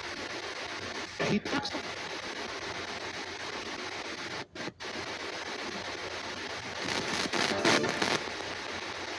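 Spirit box sweeping through radio stations: a steady hiss of radio static with a loud blip early, a short sudden dropout midway, and louder choppy snatches of broadcast sound near the end.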